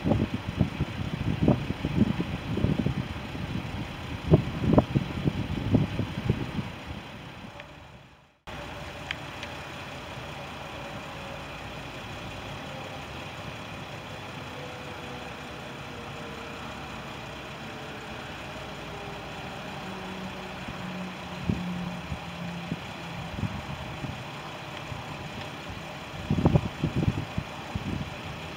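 Cessna 560XL Citation Excel's twin turbofan engines running, with gusts of wind buffeting the microphone for the first several seconds. After a brief dropout the jet's whine is steady, with a slowly falling tone. Near the end it grows louder as the jet takes off, with wind buffeting again.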